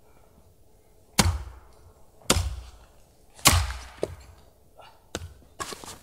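Wood being struck hard: three heavy chopping blows about a second apart, then a couple of lighter knocks.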